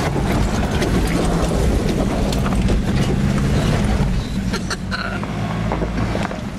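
Nissan Patrol's diesel engine labouring steadily under load as the 4x4 climbs a steep, rocky dirt slope in low-range gearing, with scattered knocks and crackles from loose stones under the tyres. The engine note eases about four seconds in as the vehicle crests the top.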